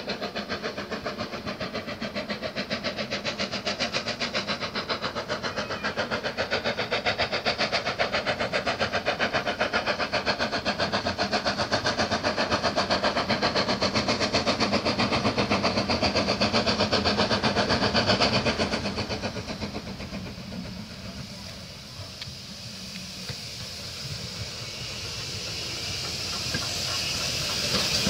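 Ivatt Class 2MT steam tank locomotive No 41241 approaching with its train: a fast, even exhaust beat that fades about two-thirds of the way through, then the train's rolling noise and steam hiss grow louder as it draws near.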